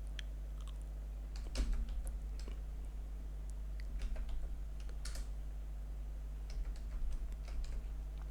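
Computer keyboard being typed on in scattered, irregular keystrokes, over a steady low electrical hum.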